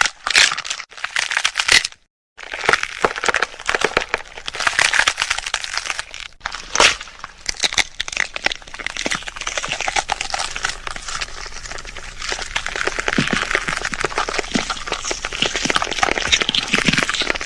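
Gore sound effect of bones cracking and crunching: a dense, continuous run of snaps and crackles, with a brief silent break about two seconds in.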